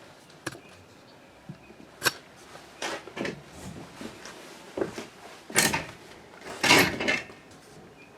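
Irregular knocks and clunks from someone moving about and handling things in a small enclosed space. The two loudest and longest come about five and a half and seven seconds in.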